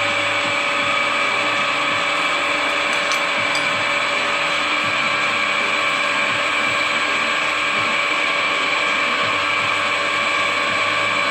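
Drill press running steadily, its motor and drive giving a constant whine made of several steady tones, with a lower hum that fades in and out.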